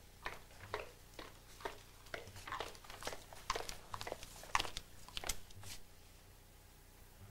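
Footsteps on a hard floor at about two steps a second, with a paper bag crinkling as it is carried; the steps stop about six seconds in.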